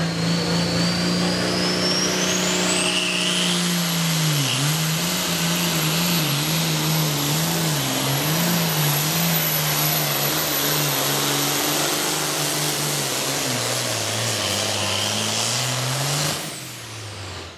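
Turbocharged pulling tractor at full load, dragging a weight-transfer sled. The turbo whine climbs over the first three seconds to a steady high whistle while the engine note wavers up and down as it works. About 14 s in the engine note drops, and the sound fades away about 16 s in.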